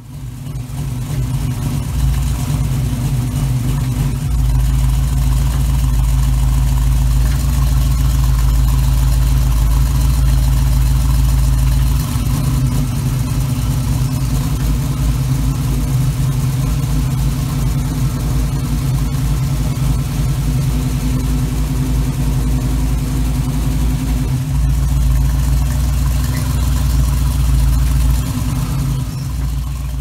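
Small-block Chevy 350 V8 in a 1936 Chevrolet coupe hot rod, idling steadily through short side exhaust pipes with a low rumble. The level shifts slightly a few times.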